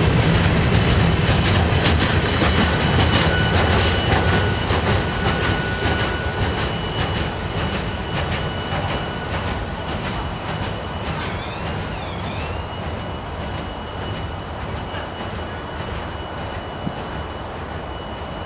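Freight train hopper cars rolling past and away, wheels clicking over the rail joints with a rumble that fades steadily as the train recedes. Steady high-pitched wheel squeal rides over it, wavering briefly in pitch about halfway through and lingering after the rumble has died down.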